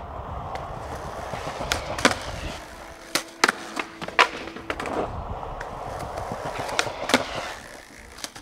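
Skateboard wheels rolling on pavement with a low rumble, broken by several sharp cracks of the board's tail popping and the board striking concrete.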